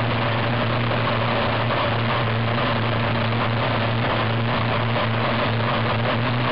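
Two-stroke petrol engine of an RC race boat running flat out at a steady pitch, recorded on board, over the hiss of the boat's spray.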